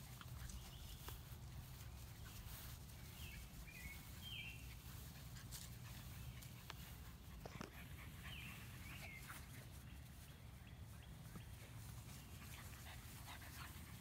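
Faint, short high-pitched squeaks and whines from six-week-old Labrador puppies, in two brief groups about three seconds and about eight seconds in, over a faint low rumble.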